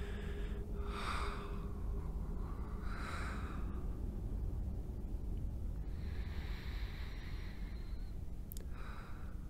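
A man's breathing close to the microphone: two short breaths about one and three seconds in, then a longer, softer breath out from about six to eight seconds. A steady low hum runs underneath.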